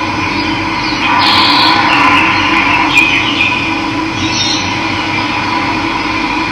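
Steady rushing of running water, with wild birds chirping over it several times.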